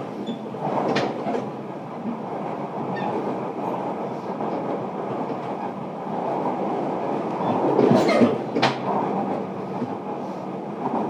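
Running noise inside a JR Kyushu 305 series electric train car: a steady rumble of wheels on rail, with a wheel clack over a rail joint about a second in and a cluster of louder knocks near eight seconds.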